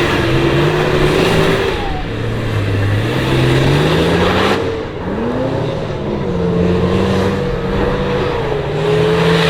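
Off-road 4x4 engine revving under load, its pitch climbing steadily for a couple of seconds and then cutting off sharply about four and a half seconds in before it picks up and revs again.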